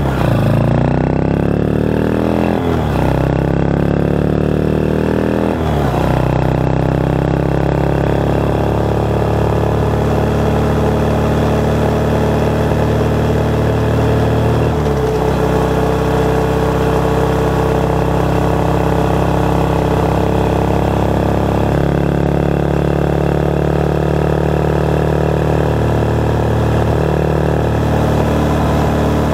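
Motorcycle engine under way, picked up by a microphone mounted under the seat. It pulls up through the gears, with its pitch rising and dropping at shifts about 3, 6 and 15 seconds in, then runs at a steady cruising speed.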